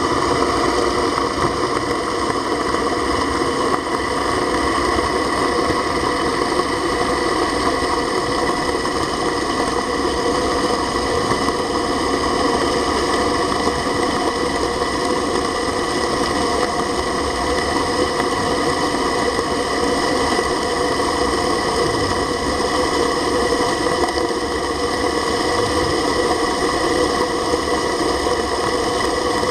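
Dragflow submersible agitator dredge pump running underwater, heard as a steady mechanical hum made of many constant tones over a rushing noise, while its agitator stirs up seabed sediment into slurry.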